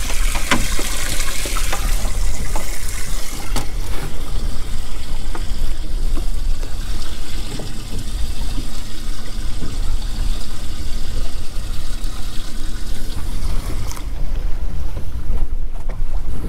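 Water trickling and splashing in a boat's live bait well, over a steady low rumble. The water sound falls away about fourteen seconds in.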